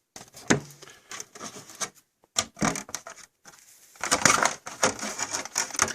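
Light clicks, taps and rubbing of small objects being handled, scattered and irregular, growing busier in the last couple of seconds.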